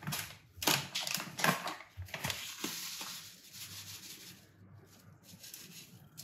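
Paper bag of sesame seeds crackling and crinkling as it is handled and tipped, followed by a softer, fading rustle as the seeds are shaken out.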